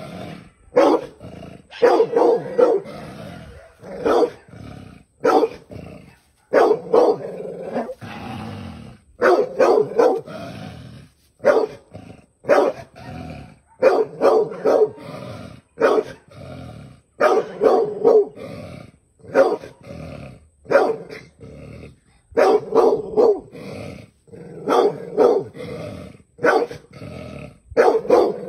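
A dog barking over and over at a snake it is confronting, in short clusters of two or three barks every second or two.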